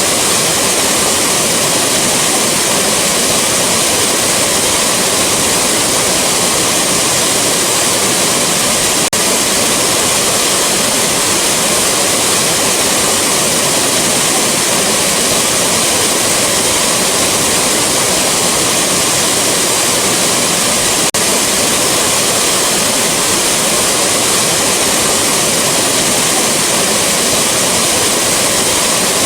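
Rushing waterfall: a loud, steady rush of falling water.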